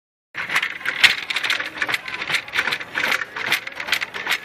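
Shopping cart wheel clattering rapidly as the cart is pushed. The wheel is faulty, 'square shaped' by its sound. It starts after a brief moment of silence.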